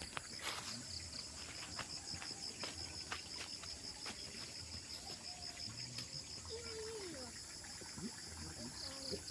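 Insects chirring in a steady, rapidly pulsing high trill, with scattered faint clicks.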